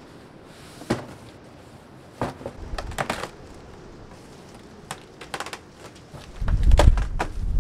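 A cardboard box being opened: packing tape picked at and ripped and the cardboard handled, in scattered short crackles and rips. In the last second or so, wind gusts rumble on the microphone and become the loudest sound.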